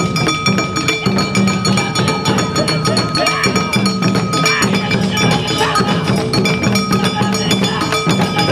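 Live awa odori festival music: taiko drums and other percussion beating a fast, steady rhythm, with a held high note sounding over it for a few seconds midway.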